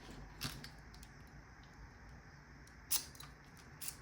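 A key being inserted into a lock cylinder and tried, with a few sharp metallic clicks: two louder ones, about half a second in and about three seconds in, and a faint one near the end. The key fits but won't turn, because the two locks are keyed differently.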